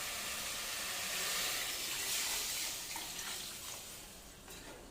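About a litre and a half of water being poured into a hot pot of browned chicken and spices, a steady rush that swells about two seconds in and fades out near the end.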